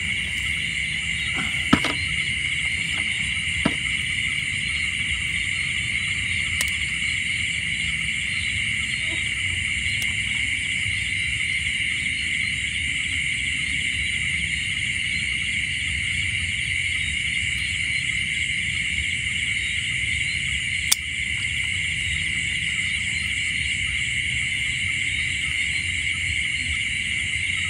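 Steady chorus of crickets or similar field insects: a continuous shrill trill in two high pitches, over a low rumble, with a few sharp clicks, near the start and about twenty seconds in.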